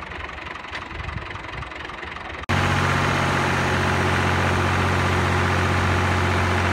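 New Holland (Al-Ghazi) diesel tractor engine idling, then, after an abrupt cut about two and a half seconds in, much louder and steady as its hydraulics tip up the sand-loaded trolley.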